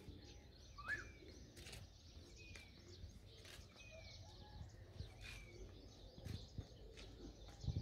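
Faint bird chirps: a handful of short, high notes, each falling slightly in pitch, spaced about a second apart over faint background noise.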